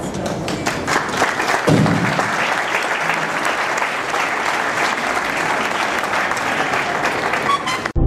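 Audience applauding: dense, steady clapping from many hands, building up during the first couple of seconds.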